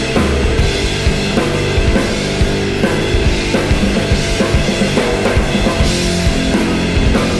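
Psychedelic rock band playing live through an instrumental stretch: a steady drum-kit beat with bass and snare hits under held notes from the other instruments.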